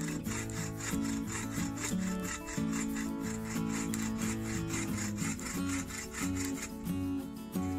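Trailblazer folding bow saw with a Swedish steel blade cutting through a dead log, a steady rasp of back-and-forth strokes, with background music under it.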